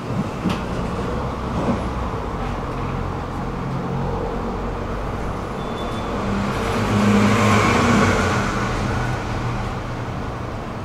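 Tram running along the track: a steady hum of the traction motors with rumble of wheels on rails, growing louder about two-thirds of the way through and then easing.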